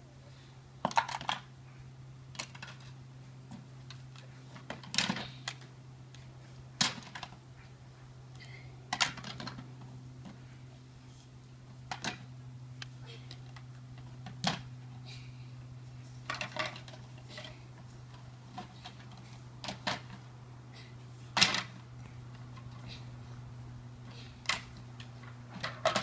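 Small plastic toys clattering as they are dropped one at a time into a plastic tub, a sharp knock every one to three seconds, over a steady low hum.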